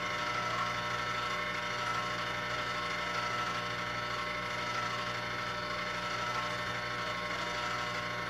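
Electric ice cream maker's motor running steadily as it churns strawberry ice cream near the end of its cycle.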